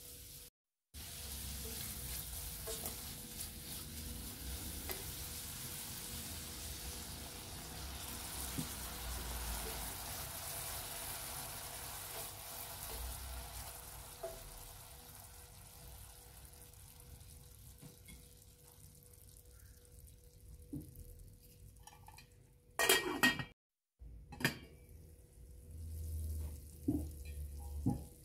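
Julienned carrots sizzling in oil in a stainless steel pan as a spatula stirs them. The sizzle is strongest in the first half and then dies down. Near the end the spatula knocks and scrapes against the pan several times.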